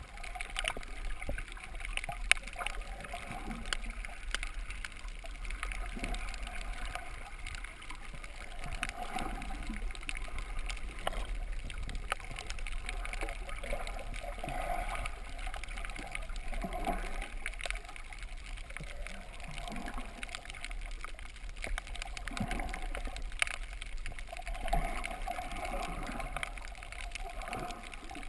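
Muffled water sound picked up by a GoPro in its waterproof housing just below the surface: steady sloshing and gurgling that swells and fades every couple of seconds, with scattered faint crackling clicks throughout.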